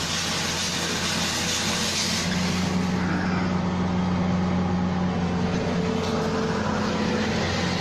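A motor-vehicle engine running steadily at an even pitch, with a loud hiss over it for the first two seconds.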